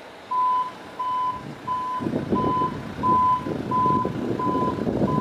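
A vehicle's reversing alarm beeping a steady single high tone, about one beep every 0.7 seconds, over a low, uneven rumble that grows louder about two seconds in.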